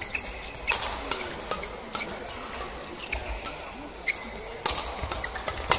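Badminton rally: rackets striking the shuttlecock in sharp cracks at irregular intervals, several times, with shoes squeaking on the court mat over a steady hall background.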